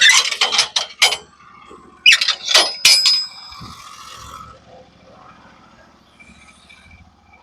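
Sharp metal clanks and rattles from handling a portable bandsaw mill's gear, in two quick bursts, the second ending in a short ringing clink.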